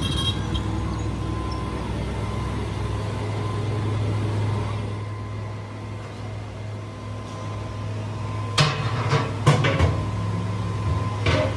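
A steady low machine hum, with quick clusters of knocks and clatter about nine seconds in and again near the end.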